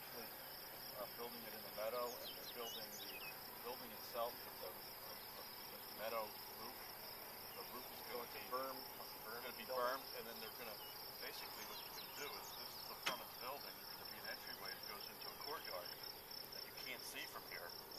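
Outdoor insect chorus, a steady high pulsing trill of many insects, with faint brief sounds lower down now and then.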